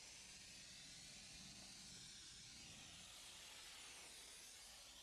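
Faint, steady hiss of steam jetting from a Chief steamer's brush-tipped nozzle onto painted engine-bay sheet metal.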